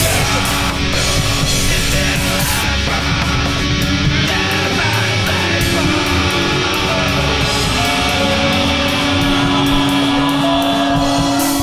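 Loud punk rock music with guitar and drums; a long held note comes in about eight seconds in.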